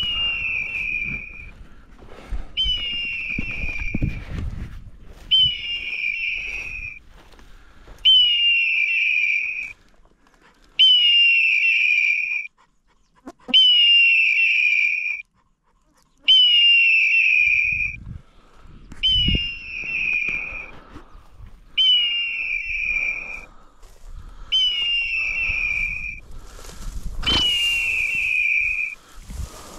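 Hunting dog's beeper collar sounding its point-mode alarm: a pitched electronic tone about a second and a half long that dips quickly at the start and then holds, repeating every two to three seconds, which signals that the setter is standing on point. Low rustling of grass and stubble comes and goes between the tones.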